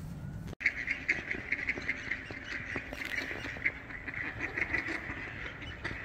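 Ducks giving alarm calls, a rapid, continuous pulsing chorus that starts abruptly about half a second in.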